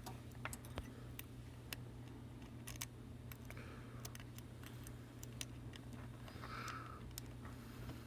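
Faint, scattered small clicks and taps of a small hand tool on a smartphone's internal parts, over a steady low electrical hum.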